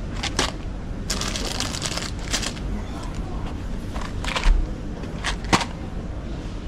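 Indistinct background voices over a low hum, with scattered sharp clicks and short rustling knocks.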